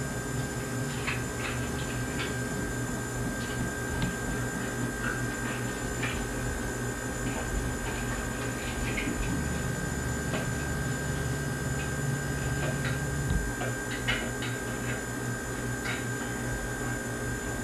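Steady low hum and hiss of background noise, with a steady thin tone and a scattering of faint small clicks.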